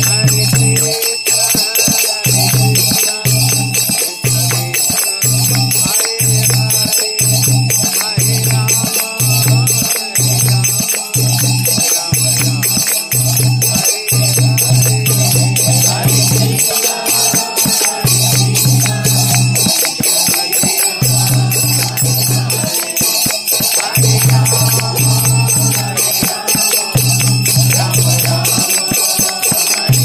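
Devotional kirtan music: hand cymbals (kartals) clashing in a fast, steady rhythm over a low sustained tone that breaks off every couple of seconds, with wavering melodic voices or an instrument in the middle range.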